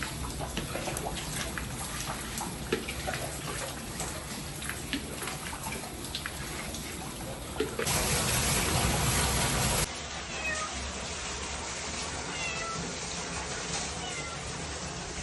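Water dripping and splashing on a flooded tiled floor while it is bailed out with a bowl, then a loud rush of water thrown out about eight seconds in, lasting about two seconds and cutting off suddenly. After that come short, high chirping calls of an animal.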